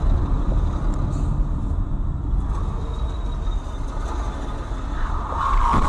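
Steady low road and engine rumble from a car driving in city traffic, heard through a dashcam inside the car. Near the end a louder, higher noise rises over it with a short knock.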